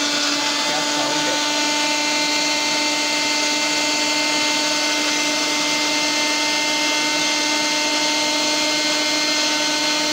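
Bajaj electric mixer grinder running flat out, its motor spinning the blades through chopped onion in a jar to make paste. The sound is a loud, steady whine over a dense whirring noise.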